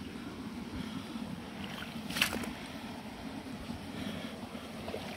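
Footsteps in boots on a soaked, muddy track of wet leaves, over a steady low rushing noise. The loudest step comes about two seconds in.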